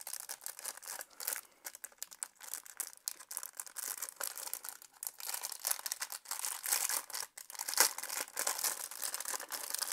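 Clear plastic packaging crinkling as it is pulled open by hand: an irregular run of crackles, loudest about eight seconds in.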